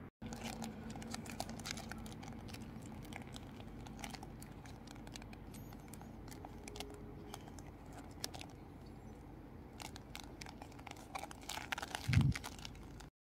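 Burst, scorched plastic toy ball being handled, its thin skin crinkling and crackling in irregular small clicks, with a dull thump near the end.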